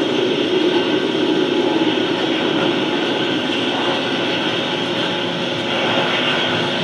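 Steady droning, rushing noise from a film soundtrack played over an auditorium's loudspeakers, heaviest in the low-middle range for the first few seconds and then a little thinner and quieter.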